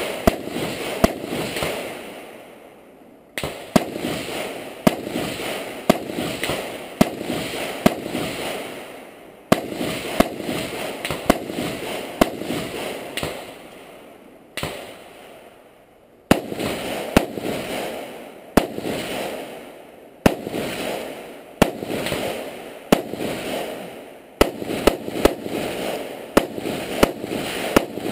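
AR-15-style semi-automatic rifle fired in rapid strings of sharp shots, with pauses of a second or two between strings, each shot trailing off in echo.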